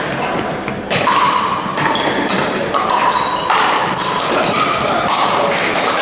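Pickleball paddles striking a hollow plastic ball in a rally: a quick run of sharp pocks, about two a second, echoing in a large gymnasium.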